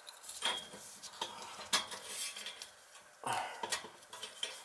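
Brass compression nut and ferrule being handled and slid onto the end of a copper pipe by gloved hands: a few light metal clinks and scrapes, irregularly spaced.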